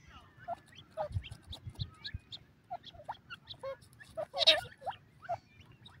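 Grey francolins giving many short, soft chirps and chips in quick succession while foraging, with one louder call about four and a half seconds in. A few low thumps come between one and two seconds in.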